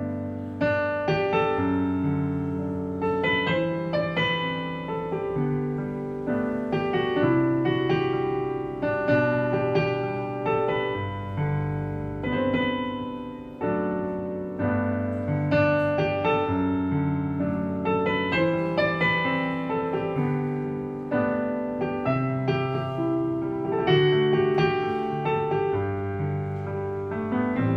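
Roland LX17 digital piano playing a slow, flowing ballad, with sustained chords under a melody line.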